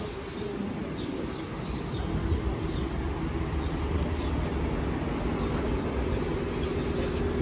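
Low, steady rumble of city street traffic under an elevated rail line, growing slightly louder a couple of seconds in, with a few short bird chirps above it.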